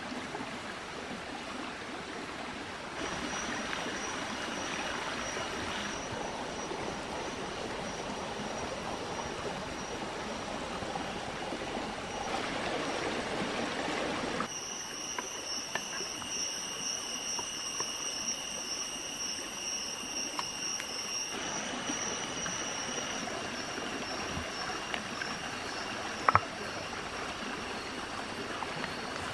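Steady rush of a stream running over stones. A thin, high, steady tone joins about halfway through, and two sharp knocks come close together near the end.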